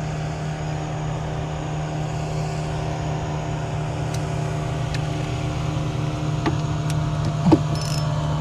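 An engine running steadily with an even, unchanging low hum. A short sharp squeak stands out about seven and a half seconds in.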